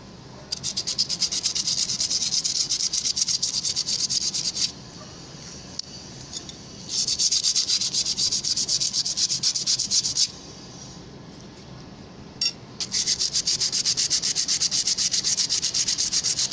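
Rusty metal spoon scrubbed rapidly back and forth by hand on sandpaper to take off the rust: a dry, hissing scrape of fast strokes in three long spells, with short pauses between them.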